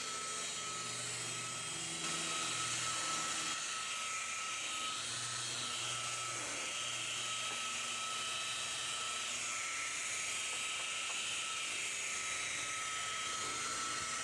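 Electric paint buffer running steadily at low speed on a car's hood, polishing out spider-web surface scratches in the paint: a constant motor whine over a steady hiss.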